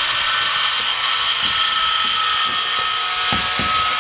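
Corded circular saw running steadily as it cuts a slot through roof sheathing, a continuous high whine with a few faint knocks.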